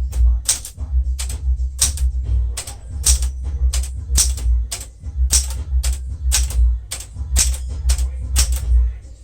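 Keys striking on a 1975 Smith-Corona Galaxie Twelve manual typewriter, an elite-typeface machine. The sharp clacks come in a steady run of about two to three a second.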